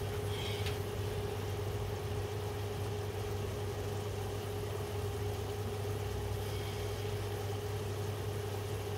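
Steady electrical hum with a thin higher tone over a light fan-like hiss from an induction hob running under a pan of simmering curry sauce.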